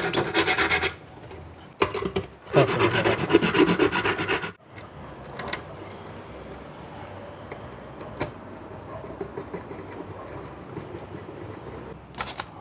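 Flat metal hand file scraping rust off a rusted metal terminal in a rice cooker's base, so that it makes good electrical contact. The rapid back-and-forth strokes come in two runs over the first four and a half seconds, followed by quiet handling with a few faint clicks as parts are fitted.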